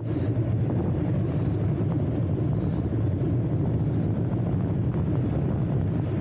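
Wind buffeting the microphone of a camera on a moving bicycle, a steady low rumble mixed with road noise, cutting in abruptly at the start.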